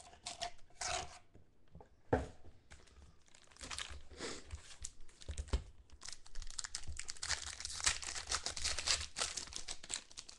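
Foil wrappers of Contenders football card packs crinkling as the packs are handled, then one pack torn open: an uneven crinkling rustle with sharp crackles, a sharp crack about two seconds in, and denser crinkling in the second half.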